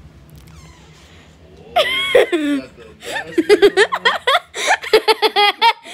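A loud shout about two seconds in, then people laughing in quick, repeated bursts.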